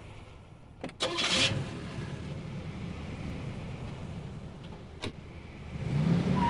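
A car with its engine running: a click and a short rush of noise about a second in, then a steady low engine rumble, a car door shutting with a sharp knock about five seconds in, and the engine rising in pitch near the end as the car moves off.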